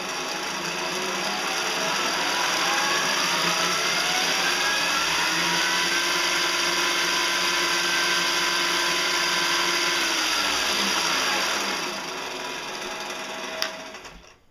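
Small metal lathe's motor whine rising in pitch as the spindle speeds up, holding steady, then falling as it slows; a click near the end, then it goes quiet. A homemade PVC roller bearing is held by hand on the spinning shaft to wear down rough, high spots.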